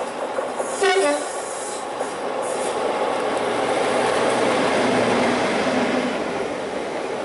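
A Class 37 diesel locomotive gives a brief two-note blast on its horn about a second in, then passes with its English Electric V12 engine running under power, dragging unpowered multiple-unit coaches whose wheels rumble and clatter on the rails. The sound is loudest as the locomotive goes by and eases off toward the end.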